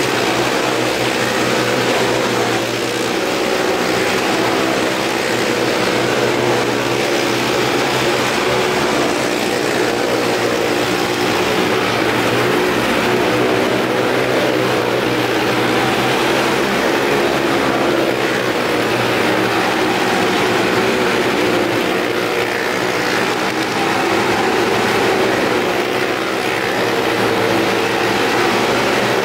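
Several motorcycle engines running steadily at high revs as the bikes circle the vertical plank wall of a wall-of-death drum.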